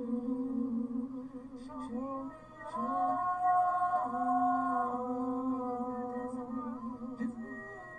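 A voice singing a slow, wordless melody in long held notes that glide from one to the next.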